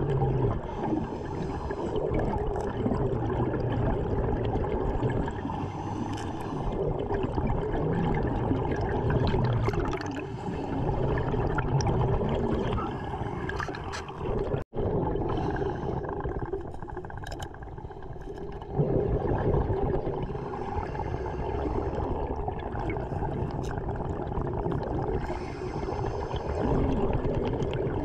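Underwater sound of a diver's breathing: exhaled air bubbling and gurgling from the regulator in repeated swells, with a momentary dropout about halfway through.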